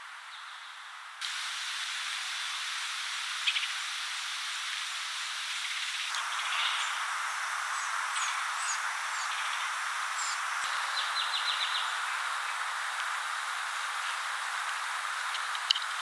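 Steady outdoor hiss of woodland background noise with faint, brief bird calls on top: a short sharp call a few seconds in, a quick rattle of rapid pulses around the middle, and a few high chirps.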